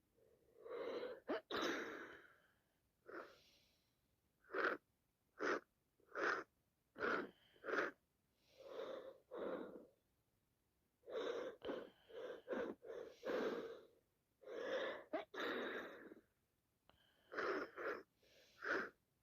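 A person with a heavy head cold sneezing and sniffling over and over, in separate breathy bursts with short pauses between. About four seconds in comes a run of short sharp sniffs, roughly one a second, followed by longer sneezes and breaths.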